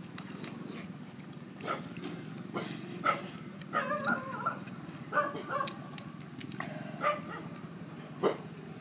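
A few short, pitched animal yips about four and five seconds in, over a steady low hum. Scattered sharp clicks come from boiled chicken being bitten and torn apart.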